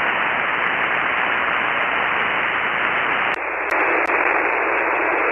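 Shortwave receiver hiss: steady band noise on an open 40-metre SSB frequency while no station is talking. About three seconds in, the hiss loses its low end and sounds thinner.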